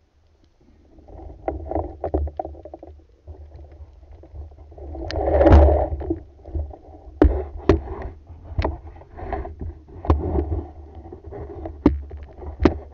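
Wooden band-powered speargun handled underwater by gloved hands, clicking and knocking sharply about half a dozen times as it is reloaded, over a low water rumble, with a louder rushing swell about five seconds in.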